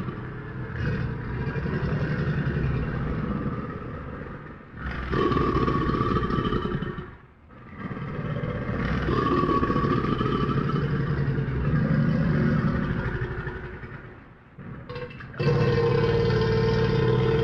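Crocodile growling: a series of long, low, pulsing growls lasting several seconds each, with short breaks between them.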